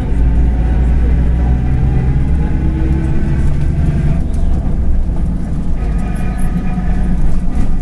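Mercedes-Benz OF-1721 BlueTec 5 bus under way: its diesel engine and driveline run with a steady low rumble, with the growl of a worn bearing. A higher whine joins about six seconds in.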